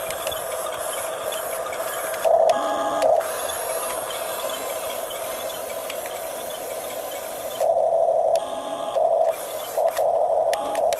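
Small electric drive motors and gearboxes of a Huina 1569 RC toy bulldozer whining steadily, getting louder in several short spells as it drives.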